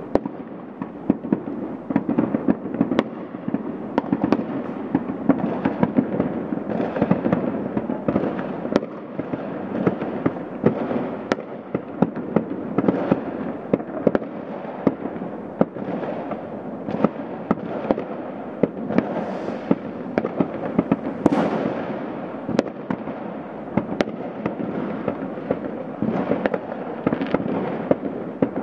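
Many fireworks going off at once: a dense, continuous rumble of distant bangs with frequent sharper cracks on top. A rising whistle cuts through about 21 seconds in.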